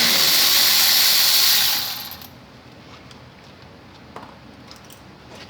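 Power ratchet spinning out a 15 mm brake caliper bolt: a loud hissing run that stops about two seconds in, followed by a few light metal clicks.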